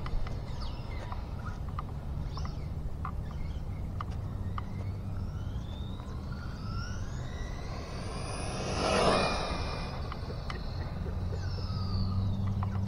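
Electric motor of an RC drag car whining upward in pitch as it accelerates through a pass, loudest about nine seconds in, then a shorter falling whine, over a steady low hum.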